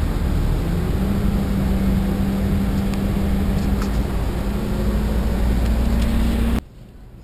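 Steady rumble and hiss of a moving vehicle heard from inside, with a low steady hum running under it. It cuts off abruptly about six and a half seconds in, leaving a much quieter background.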